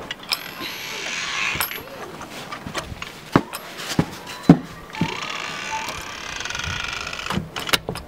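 Excited voices laughing and shrieking in two spells, with scattered sharp clicks and knocks.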